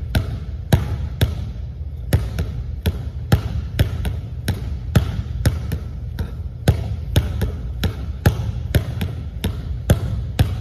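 Basketball dribbled hard on a hardwood gym floor in a low in-and-out scissors dribble drill: sharp, echoing bounces about two a second in an uneven rhythm, over a steady low hum.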